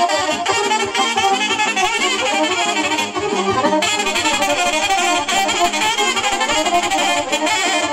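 Live Romanian folk dance music in an instrumental break between sung verses: a fast, ornamented lead melody over a steady dance beat.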